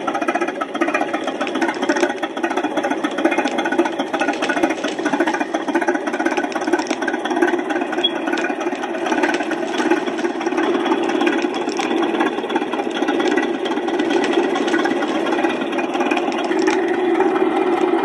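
Bulldozer engine sound effect: a heavy engine running steadily and evenly, with a rough, knocking texture.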